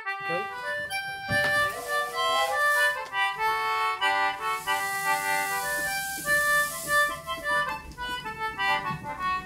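Background music: a quick melody of short notes on a reedy, harmonica-like instrument, with a high hiss for a couple of seconds in the middle.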